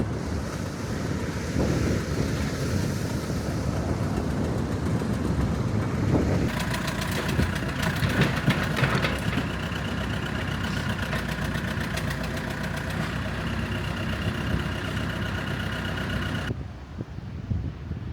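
Wind rumbling on the microphone, with a motor running steadily with a whining tone and fast ticking from about six seconds in; it cuts off abruptly near the end.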